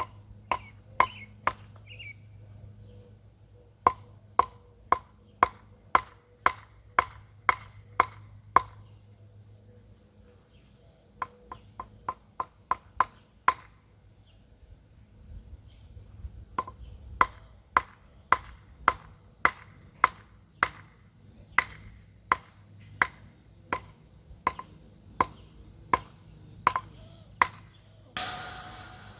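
Repeated sharp, woody knocks, about two a second, in three long runs with short pauses between, then a brief burst of noise near the end.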